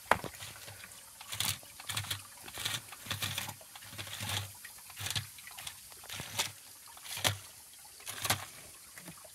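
Toy RC stunt car driven over wet rock in short bursts, about one or two a second: its small electric motors and rubber-paddle wheels scrabbling and knocking on the stone, over a faint trickle of water.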